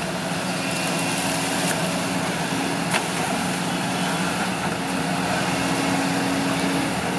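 Kobelco SK140 crawler excavator's diesel engine running steadily under working load as the boom and bucket move, with one sharp knock about three seconds in.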